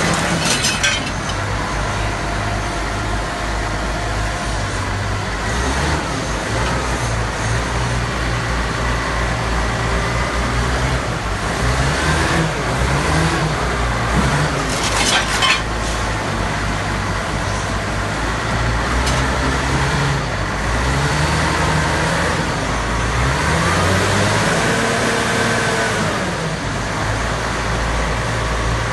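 Kawasaki 85Z wheel loader's diesel engine running, revving up and down several times as the machine moves and works its raised bucket, with a couple of sharp clanks.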